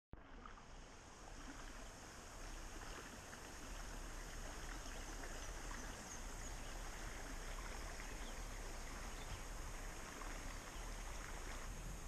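Faint, steady rush of flowing river water, a little louder from about four seconds in.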